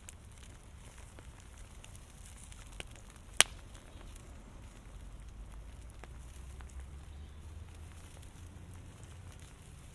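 Fire crackling with scattered small pops and one sharp, loud pop about three and a half seconds in, over a steady low rumble.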